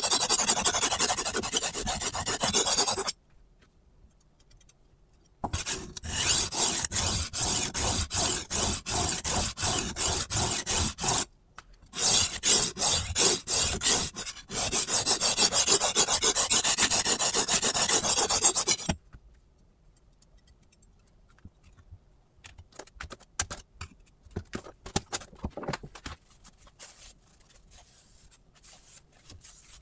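A steel kitchen knife held in a Hapstone T1 angle guide is stroked quickly back and forth across a sharpening stone, making loud rasping strokes in runs with short pauses. For roughly the last third there are only faint clicks and taps of the metal guide and blade being handled and turned over.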